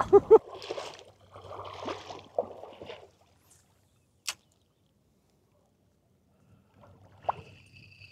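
Scattered soft splashing and scuffling as a big hooked fish is brought in at the water's edge, then a single sharp click about four seconds in before things go quiet.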